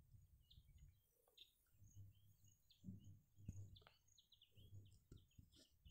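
Near silence: faint room tone with scattered, faint, short high bird chirps.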